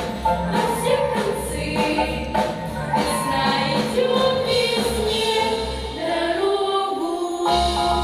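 A group of teenage girls singing a pop song together into microphones, with musical accompaniment and a pulsing bass; the bass drops out for a moment about six seconds in.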